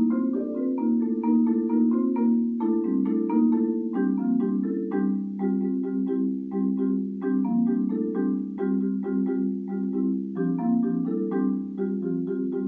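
Solo marimba played with four mallets: steady rolled chords in the low-middle register under quick repeated higher notes, one unbroken flowing passage.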